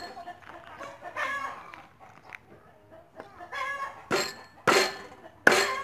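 A heavy cleaver chops through pork ribs on a thick wooden chopping block: three hard chops in the second half, well under a second apart, which are the loudest sounds. Before them, chickens cluck and call.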